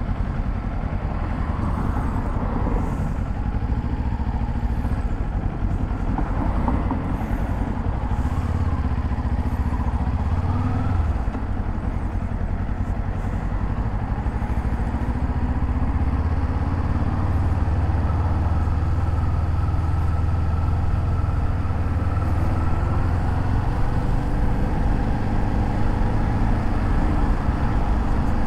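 Kawasaki Z400's 399 cc parallel-twin engine running while riding through city traffic, the engine note rising and falling a few times in the first half, then holding steadier.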